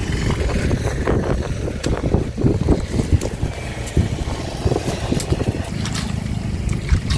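Wind rumbling on the microphone, with scattered light clicks and splashes from hands and a stick working through dry twigs and shallow muddy water.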